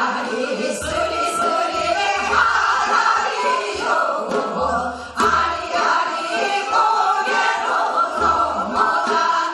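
A group of women singing a Gangwon-do Korean folk song (minyo) together, with long wavering held notes.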